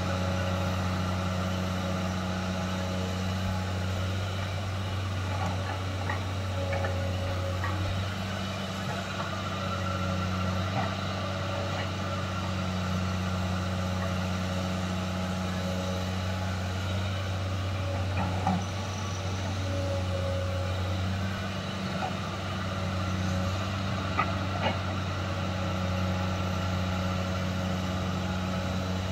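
JCB tracked excavator's diesel engine running steadily under working load as it digs, with a few light knocks about two-thirds of the way through.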